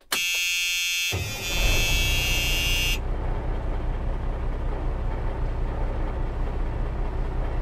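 Garbage truck engine running with a steady low rumble. Over it for the first three seconds is a loud, steady electronic tone with many high overtones, which cuts off suddenly.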